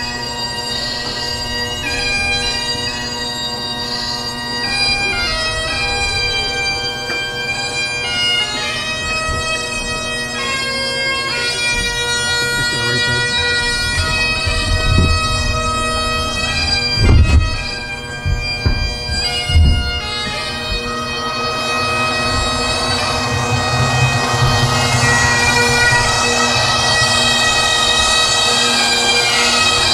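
Great Highland bagpipes played by a pipe band: steady drones under a chanter melody. A few low thumps come about two-thirds of the way through, and the pipes sound fuller and a little louder after that.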